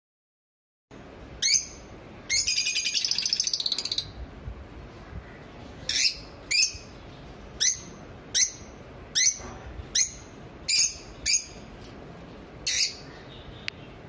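Lovebirds calling with high-pitched chirps. After a single chirp comes a rapid chattering run of notes lasting about a second and a half, then about nine separate sharp chirps roughly a second apart.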